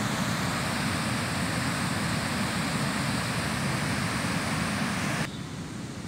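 Steady rushing of white water in a river's rapids below a waterfall, cutting off abruptly near the end to a fainter, even hiss.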